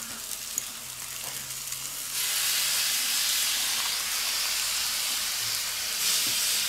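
Food sizzling on a hot cast-iron griddle plate over a charcoal kettle grill: a steady frying hiss that gets louder about two seconds in.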